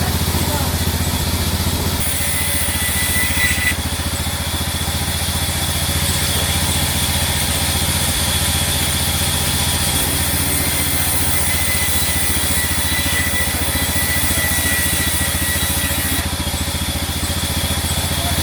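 An engine running steadily with an even pulse, and a faint high whine that comes and goes.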